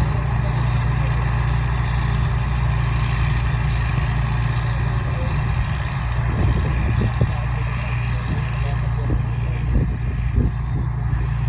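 Rice combine harvester running steadily with a continuous low engine drone, a few short knocks or thuds in the second half.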